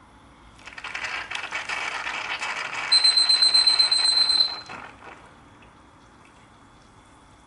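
Bialetti Mini Express moka pot sputtering and gurgling as steam pushes the last of the coffee out through its two spouts. About three seconds in a high steady whistle joins it for a second and a half, then everything dies away about five seconds in. The sputter marks the end of the brew, when the water in the base is nearly spent and steam blows through.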